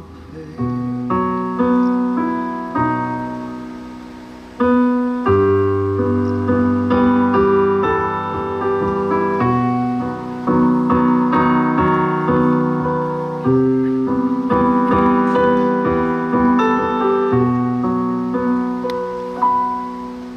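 Piano playing an instrumental passage between sung lines: chords struck about once a second over low bass notes, each fading before the next. It is quieter for the first few seconds and grows louder about four and a half seconds in.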